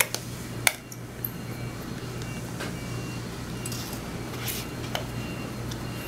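A few sharp plastic clicks and taps as the bike alarm's small tag unit is handled and its battery compartment snapped shut, the loudest just under a second in, over a faint steady hum.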